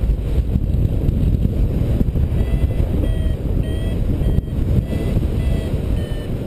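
Wind buffeting the microphone in flight under a paraglider, with a variometer beeping in short, repeated high tones from about two seconds in, signalling that the glider is climbing.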